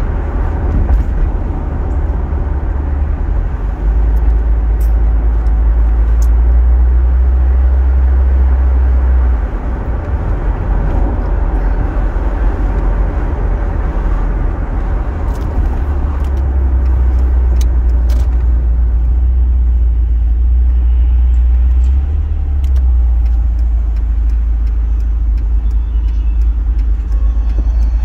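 Volvo 940 turbo on the move, heard from inside the cabin: a steady low engine and road drone. It eases off about nine seconds in and picks up again around sixteen seconds.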